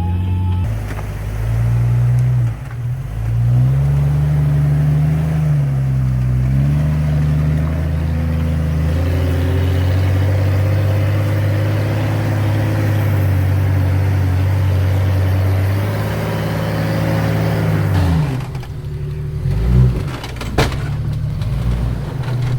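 Jeep engine revving up and down, then running steadily under load. It drops away about eighteen seconds in, followed by a few sharp knocks near the end.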